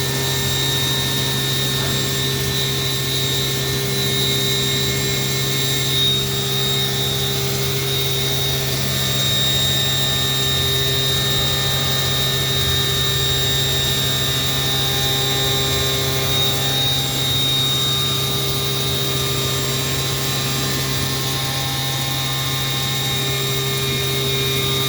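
GR 712 CNC machine running while milling a hole by helical ramping: a steady hum with a high, even whine from the spindle, and fainter cutting tones that shift slightly as the cutter ramps down.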